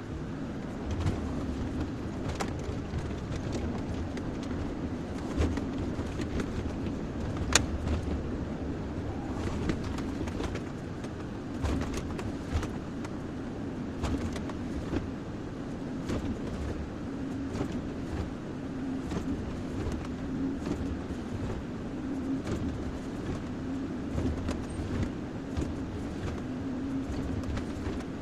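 Kobelco SK-140 hydraulic excavator's diesel engine running steadily under working load, with scattered sharp knocks and clanks; the loudest comes about seven and a half seconds in.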